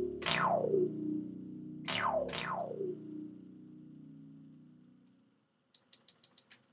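Synthesizer music: repeated falling, swooping sweeps over a held low chord that dies away about five seconds in. Near the end come about six faint, quick ticks.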